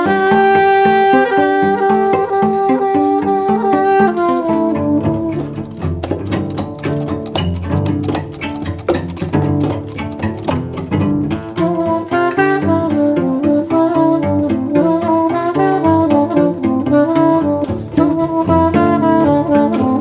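Background instrumental music with strings, upright bass and a steady beat, opening on a long held note for about four seconds.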